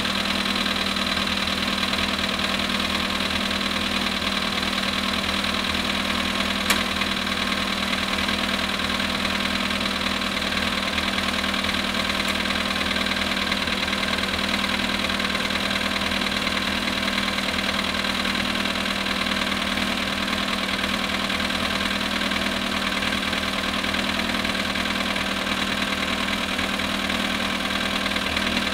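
Volkswagen Polo sedan engine idling steadily at −19 °C, with the knocking that the owner presents as an engine knock in the cold. A single sharp click about a quarter of the way in.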